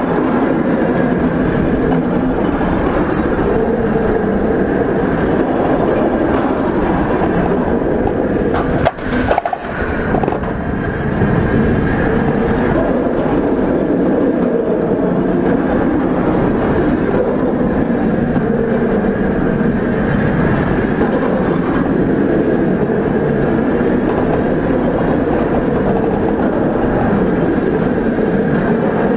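Roller coaster train running along its steel track: a loud, steady rumble of wheels and rushing air, with a brief break and clatter about nine seconds in.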